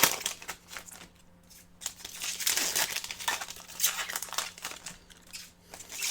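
Crinkling and rustling of trading-card pack wrappers and cards being handled, in irregular bursts with a short lull about a second in.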